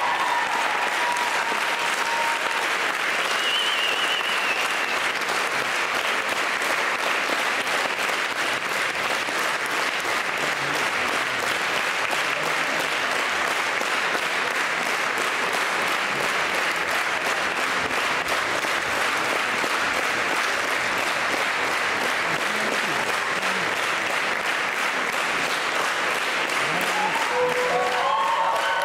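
Audience applauding steadily, a dense even clapping throughout. Music starts up under it near the end.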